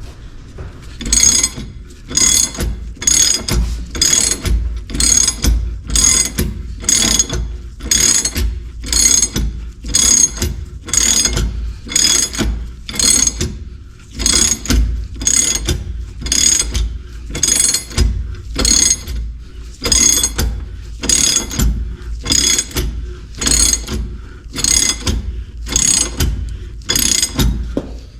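Ratchet wrench clicking in short repeated strokes, about one a second, as it turns the screw of a bearing press tool slowly pulling the hub into a rear wheel bearing.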